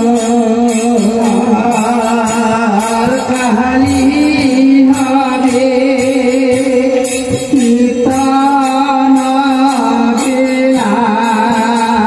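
Live Hindu kirtan music amplified through horn loudspeakers: sustained, wavering melodic lines of singing and instruments over a steady percussive beat.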